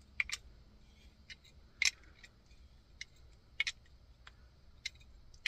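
Scattered sharp clicks, some in quick pairs, from a hand tool being worked on a skateboard truck's kingpin nut as it is tightened down.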